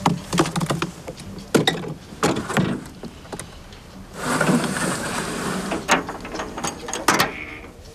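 Handling noise of a carrying box being lifted onto and set down in a pickup truck's ribbed metal bed: a string of sharp knocks and clunks, a stretch of rough rustling or scraping about four seconds in, then two more sharp knocks near the end.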